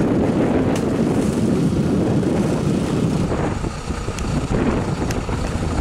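Wind buffeting the microphone: a loud, uneven low rumble, with a couple of faint clicks about four and five seconds in.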